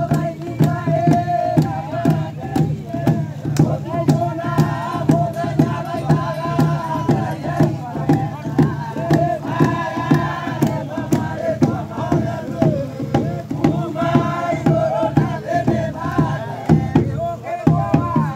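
A group of voices singing together in a chant-like way over a steady percussive beat.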